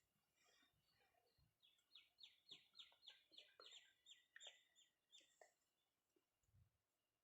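Faint bird calls: a rapid series of about a dozen short, high chirps, each falling in pitch, about three a second. A soft low thump comes near the end.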